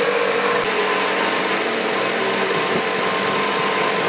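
Ukraina-5 16 mm film projector running: the steady, rapid mechanical clatter of its film-advance mechanism, keeping an even level.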